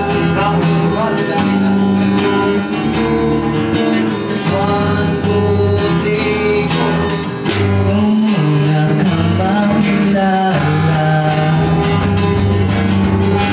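Live amateur band playing a song: a male vocalist singing through a microphone over electric guitars.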